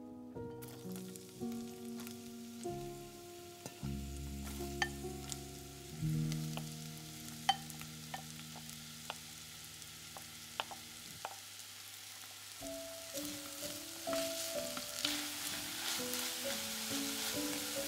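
Diced onion and garlic sizzling as they drop into hot olive oil in an enamelled cast-iron pot, the sizzle getting louder in the second half as a wooden spoon stirs them, with a few sharp taps along the way. Soft background music plays throughout.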